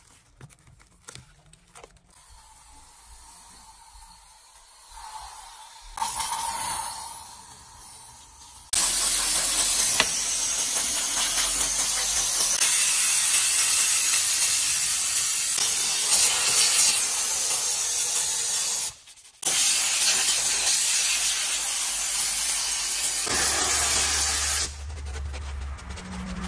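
Steam cleaner's jet hissing loudly and steadily over an engine bay, starting about a third of the way in, cutting out briefly once and dropping away near the end. Before it, only light clicks and brushing.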